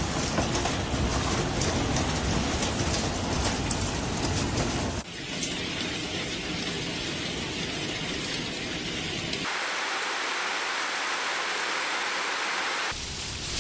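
Heavy rain, a steady hiss, whose sound changes abruptly about five, nine and a half and thirteen seconds in.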